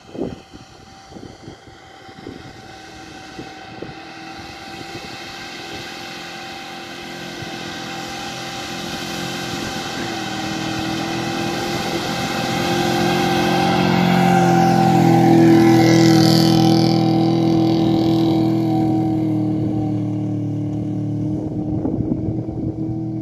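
Subaru L series wagon's stock EA82 flat-four engine pulling steadily under load up a long soft-sand dune climb, with two people and camping gear aboard. It grows louder as the car approaches, is loudest about two-thirds of the way through as it passes close, then fades a little as it heads on up the hill.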